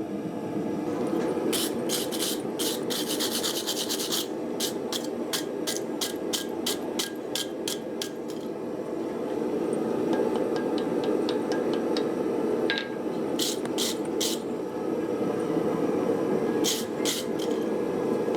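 A forge running with a steady rushing sound, overlaid by several runs of short, sharp scraping ticks from hand work on metal.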